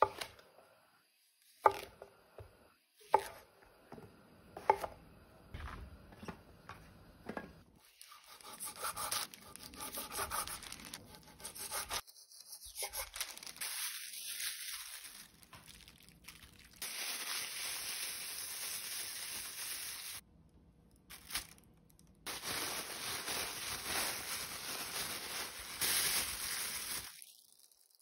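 Kitchen food preparation: a few sharp knocks in the first several seconds, then long stretches of scraping and rubbing.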